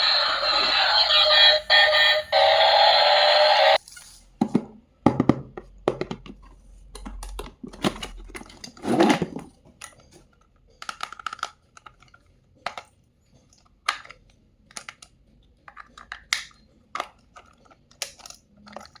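Background music for about the first four seconds, cutting off abruptly, then scattered clicks and short crinkling rustles of hands handling toys and their packaging.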